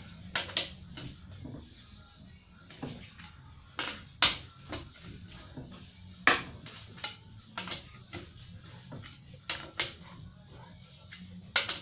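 Socket and breaker bar clinking on the wheel bolts of an Opel Corsa C steel wheel as the bolts are loosened one by one: sharp metallic clicks, some in close pairs, every second or two.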